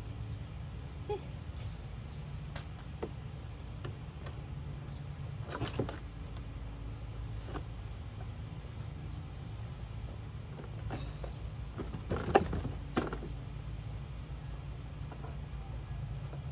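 Insects keep up a steady, high-pitched drone over a low hum. Occasional clicks and knocks come from hands working the hollow plastic body of a Power Wheels ride-on car and its wiring; the loudest are a couple of sharp knocks about twelve seconds in.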